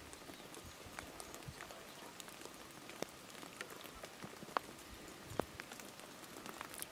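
Rain falling: a steady hiss with scattered sharp ticks of single drops landing close by.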